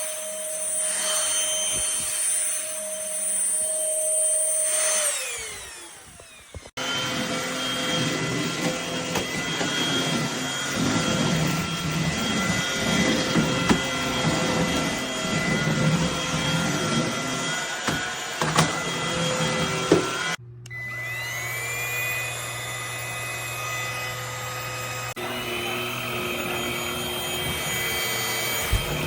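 Cordless stick vacuum cleaner's motor running with a steady high whine, then winding down in pitch as it is switched off about five seconds in. It then runs again with a louder, rougher sound, and about two-thirds of the way through it spins up again with a rising whine.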